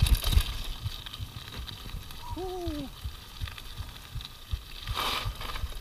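A mountain bike running fast down a gravel trail, heard from the bike. Irregular low thumps of wind buffeting and the bike jolting over the ground, with a sharp knock at the very start. A short tone rises and falls about two and a half seconds in, and a burst of hiss comes about five seconds in.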